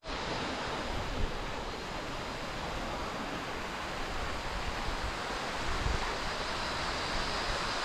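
Waterfall rushing: a steady, even noise of falling water that holds unchanged throughout.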